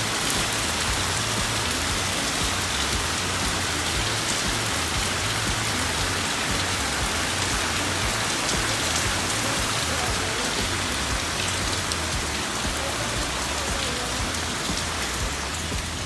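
Steady rain falling, a even hiss of many fine drop ticks.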